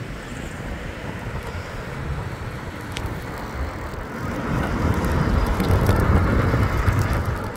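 Wind and road rumble on a handlebar-mounted camera during a bicycle ride through traffic: a steady rushing noise that swells louder for about three seconds in the second half. A single sharp click about three seconds in.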